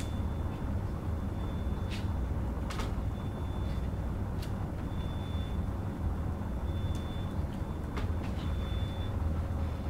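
Steady low rumble of room noise, with a few sharp taps and brief thin squeaks from a marker writing on a whiteboard.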